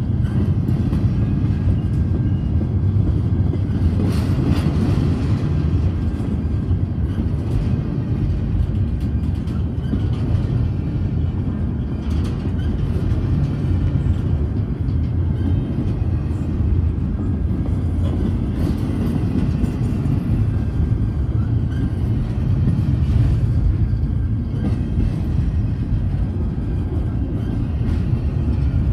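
Double-stack intermodal well cars rolling past close by: a steady low rumble of steel wheels on rail, with occasional clicks.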